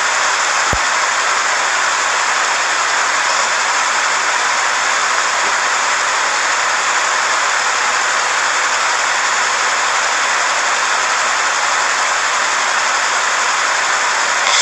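Steady, unbroken hiss with no rise and fall of breathing; no snoring is heard. A faint tick sounds about a second in.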